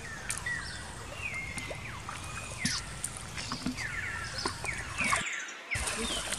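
Water splashing and lapping as macaques swim and paddle in a pond, with scattered small clicks. Over it, repeated short high calls fall in pitch, several in every second or two. The sound drops out briefly about five seconds in.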